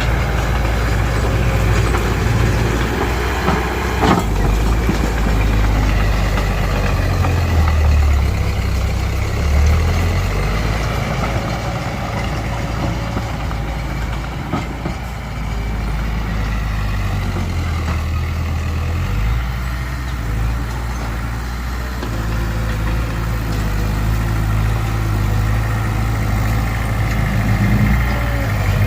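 Heavy diesel engines of a Mitsubishi BD2F bulldozer and a dump truck working, the engine note rising and falling as they work. A sharp knock sounds about four seconds in.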